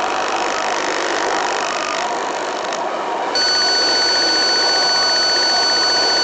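Onboard audio of an FPV model plane in flight: a steady rushing noise. About three and a half seconds in, a louder, steady, high-pitched electronic tone cuts in and holds.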